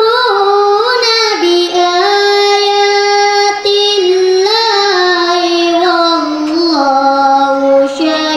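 A boy reciting the Quran in the melodic tilawah style, holding long notes and ornamenting them with slides and turns between pitches.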